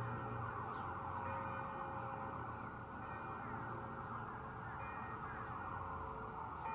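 Church bells ringing: several long, ringing tones at different pitches overlap, with a new note coming in every second or two.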